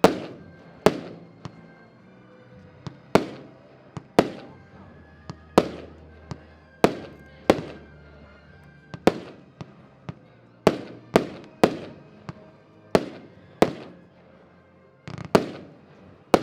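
Diamond Revolution firework battery (cake) firing: a sharp bang about once a second, each with a short echoing tail, some coming in quick pairs.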